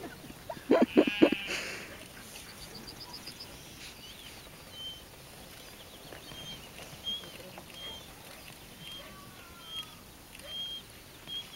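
A sheep bleats loudly about a second in, a wavering call. After that a small bird chirps a short high note roughly once a second, with one quick trill early on.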